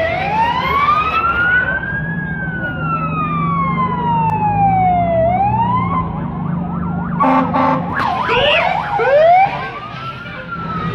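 Emergency vehicle siren wailing, its pitch slowly rising and falling over a few seconds at a time, over a steady low hum. About seven seconds in, a short burst of choppy sound and quick rising yelps cuts in and peaks as the loudest moment, then the slow wail resumes.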